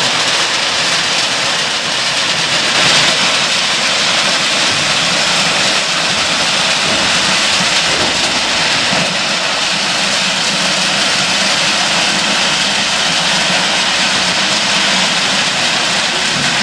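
Ballast hopper wagons rolling slowly while dumping crushed stone ballast from their bottom chutes onto new track: a steady, loud hiss of pouring stone.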